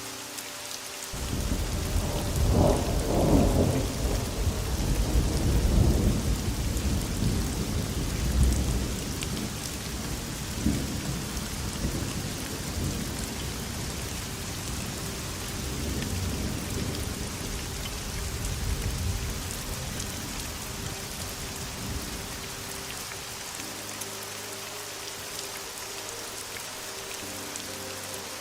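Steady heavy rain with a long roll of thunder. The thunder starts about a second in, is loudest over the first several seconds, then rumbles away slowly and dies out near the end.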